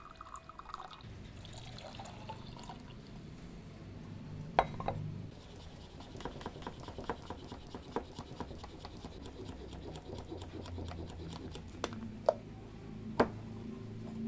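Milk frothed in a French press: the plunger is pumped quickly up and down, giving a fast run of small clicks and rattles, about three or four a second, with a few louder knocks. It opens with coffee pouring from the press into a glass.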